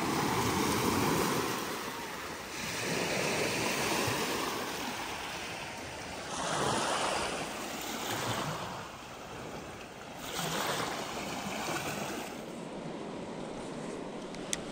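Lake Superior waves washing onto the shore, the rush of water swelling and falling back every few seconds.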